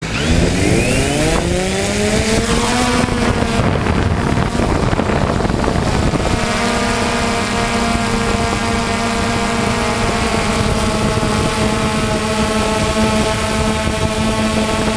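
A motor runs with a steady pitched hum over a constant rushing noise. Its pitch rises over the first few seconds, wavers, and then holds steady.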